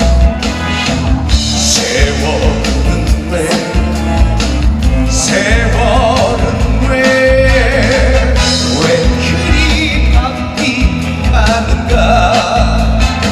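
Live trot song played through a stage sound system: a backing band with a steady beat and a melody line with vibrato over it.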